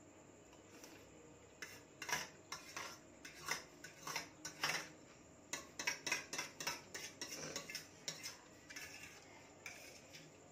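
Metal cutlery clinking and scraping against a stainless-steel plate as food is mixed and scooped up. A quick run of short clinks and scrapes starts about two seconds in, is densest around the middle and thins out near the end.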